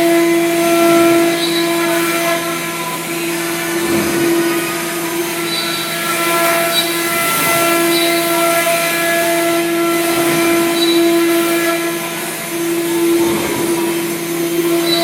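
Omnitech CNC router running a cutting job: the spindle holds a steady high whine over the noise of the bit cutting, rising and dipping a little as it works through the parts.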